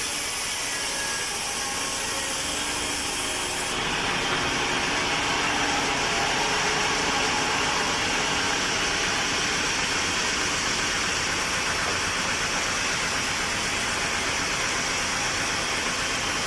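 Sawmill machinery running with a steady, dense mechanical noise. It changes abruptly and grows louder about four seconds in, then holds steady.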